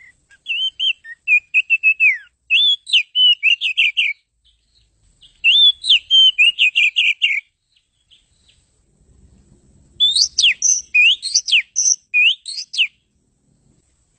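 Oriental magpie-robin (kacer) singing: three bouts of quick, varied whistled phrases, each about two to four seconds long, with short pauses between them.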